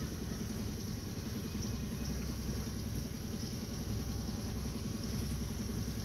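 Small boat motor running steadily at low speed, a low even hum.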